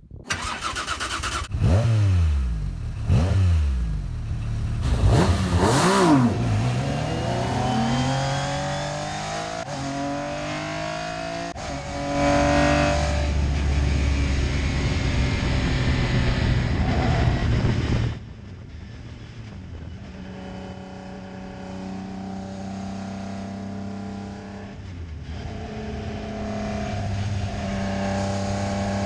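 Metro 6R4 Group B rally car's 3-litre V6 engine, revved so that the pitch rises and falls sharply several times, then running hard under acceleration. About 18 seconds in it turns quieter and steadier as the car is heard from farther off while it laps.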